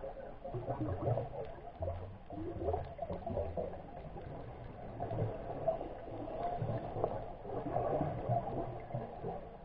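Underwater ambience picked up by a camera in its waterproof housing on the reef: muffled, uneven water noise with patchy low rumbles.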